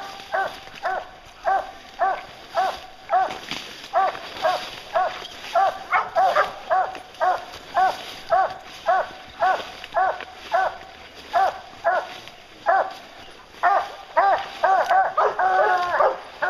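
English hounds barking steadily at the tree, nearly two barks a second: the treed bark of hounds holding a black bear up a tree. Near the end more dogs join in, and their barks overlap.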